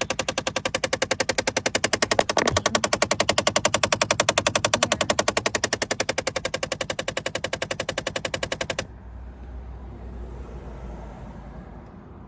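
Jeep Compass HVAC blend door actuator clicking rapidly and evenly behind the dash, a clickety-clack knocking from its cracked gear with missing teeth. The clicking cuts off suddenly about two-thirds of the way through, leaving a faint low hum.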